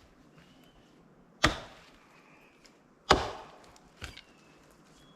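Axe chopping into wood: two hard blows about a second and a half apart, each with a short ringing tail, then a lighter knock.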